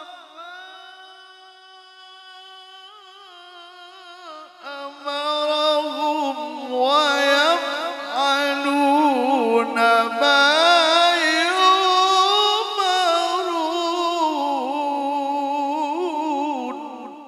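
Male Quran reciter's voice in the melodic mujawwad style, drawing out long melismatic notes with no clear words. A soft held note comes first. About five seconds in it swells into loud, wavering, ornamented runs that climb in pitch, then it fades away near the end.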